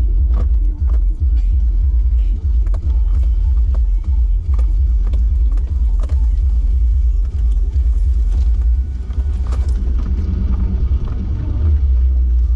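Off-road vehicle driving over a rough trail: a steady low rumble with frequent short knocks and rattles as it bounces over bumps.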